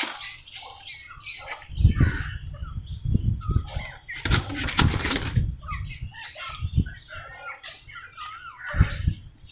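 A pigeon's wings flapping in several bursts as it is caught by hand in a wooden coop, with chickens clucking nearby.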